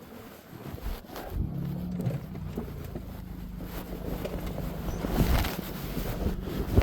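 An engine running with a steady low drone, with a few knocks and rustles near the end.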